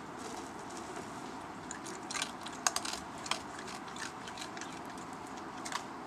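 Raccoon crunching dry food pieces: a run of sharp, crisp crunches and clicks in the middle and a few more near the end, over a steady hiss.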